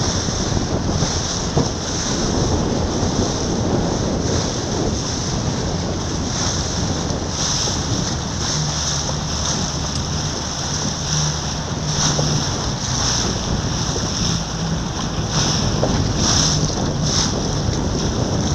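Wind buffeting the microphone over the wash of water, a loud, steady rush that swells and eases, with a faint low hum underneath.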